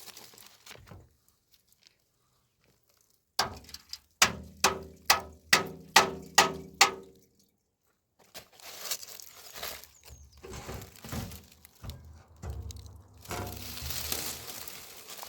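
A run of about eight sharp knocks, each with a short ringing tone, a little under half a second apart. After a pause comes irregular rustling and crinkling.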